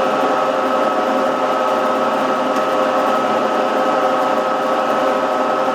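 Sajo PF-52 horizontal milling machine running, its motor and gear drive giving a steady whine made of several even tones over a mechanical hum.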